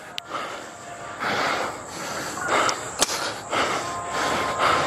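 Heavy, rhythmic breathing of a runner catching his breath after a sprint, close on a clip-on microphone, about one breath a second. A single sharp click about three seconds in.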